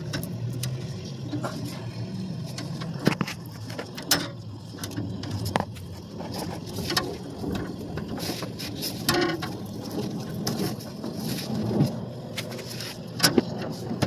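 Irregular clicks and knocks of a gloved hand shifting the copper tubes of a large evaporator coil, over a faint steady hiss of pressurised gas escaping from a leak in the coil.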